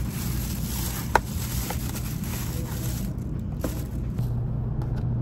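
Thin plastic carrier bag rustling and crinkling as it is handled and a bottle is lifted out, stopping about four seconds in, with a sharp click about a second in. Under it runs the steady low rumble of the Shinkansen carriage.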